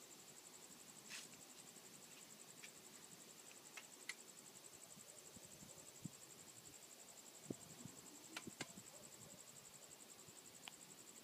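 Faint, steady high-pitched insect trill, rapidly pulsing like a cricket, with a few soft clicks and knocks now and then.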